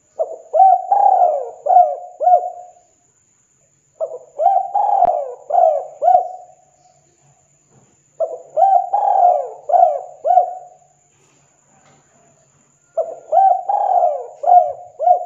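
Spotted dove (tekukur) cooing its song phrase four times, each a run of four or five coos lasting about three seconds, with short pauses between phrases.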